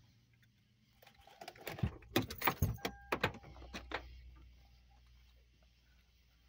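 Clicks, rattles and a jangle of keys inside a parked car as a car door is opened, bunched between about one and four seconds in and loudest around the middle, with a short steady beep partway through.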